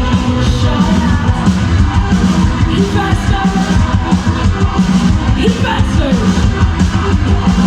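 Live rock band playing loud, fast music with shouted vocals over dense drumming and distorted guitars.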